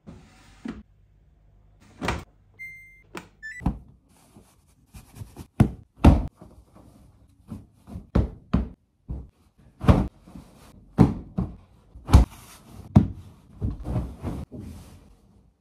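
A front-loading Samsung ecobubble washing machine: a thunk near the start, like its door shutting, then a couple of short electronic beeps from its controls about three seconds in. After that comes a run of soft thumps and flaps as pillows and bedding are shaken out and dropped onto a bed.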